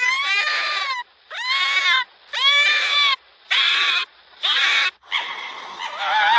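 Fox barking: five high, hoarse barks about a second apart, each rising then falling slightly in pitch. Near the end a longer call with a wavering pitch begins.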